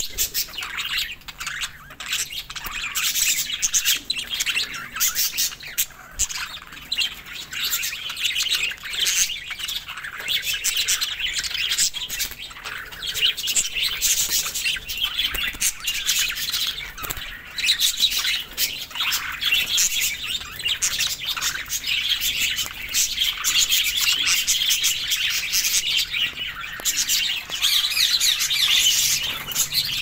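A flock of budgerigars chattering: many overlapping high chirps, warbles and squawks, dense and unbroken.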